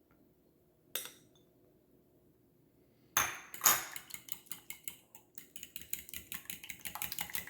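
Two sharp knocks against a bowl, then a fork whisking egg, buttermilk and oil in the bowl: quick clinking strokes of the fork against the bowl, several a second, from a little past halfway on.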